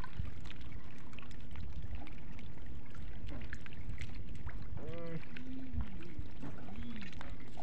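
Shallow seawater sloshing and splashing, with scattered small splashes over a steady low rumble.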